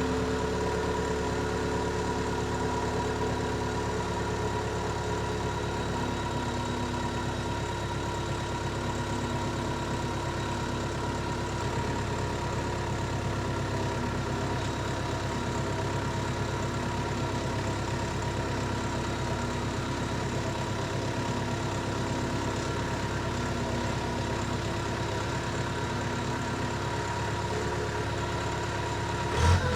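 Diesel engine of a Case 430 skid steer idling steadily at an even speed, growing suddenly louder with a change in pitch right at the end.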